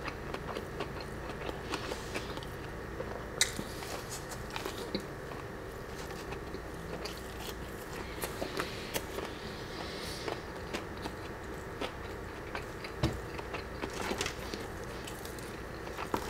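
Close-miked chewing of a crispy breaded Chick-fil-A chicken tender: scattered small crunches and mouth clicks.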